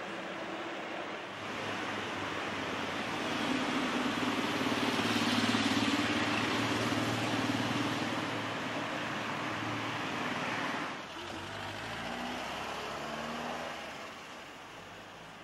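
Road traffic on a village street: a vehicle's engine and tyres grow louder, peak about five or six seconds in and fade, dropping away sharply a little before the end. Shortly after, another engine is briefly heard rising in pitch as it pulls away.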